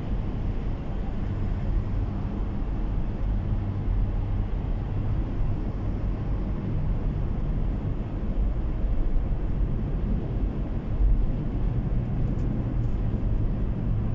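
Steady low rumble of a car's tyres and engine at highway speed, heard inside the cabin.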